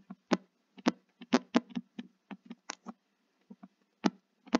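Stylus tapping and scraping on a tablet screen while handwriting: an irregular series of a dozen or so sharp ticks, bunched closely together in places.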